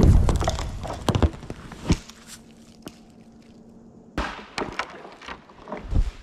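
A dead tree crashing down into deep snow: a loud crash at the start, falling away over about a second with a couple of cracking knocks after it. A second run of cracks and knocks follows later, ending in a heavy dull thud near the end.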